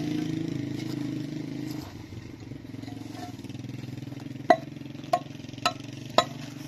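A mason's hammer striking a hollow concrete block four times, about half a second apart, starting about four and a half seconds in; each blow is a sharp clack with a short ring. Before that, a steady engine hum fades away over the first two seconds.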